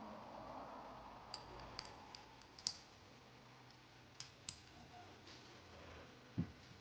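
Faint, scattered clicks of 1911 pistol parts being handled and fitted together during reassembly. There is a quick run of clicks between about one and a half and three seconds in, a few more around four to five seconds, and a duller knock near the end.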